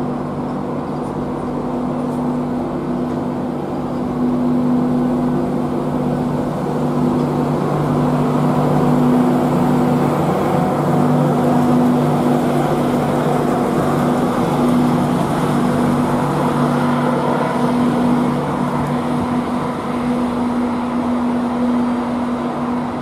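A train's engine running steadily, a low drone that holds the same pitch throughout and swells slightly in the middle.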